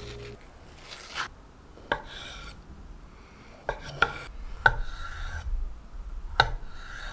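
Chef's knife slicing through a soft, ripe avocado half, the blade knocking on an end-grain wooden cutting board at the end of each cut, about six sharp knocks with soft scraping between them.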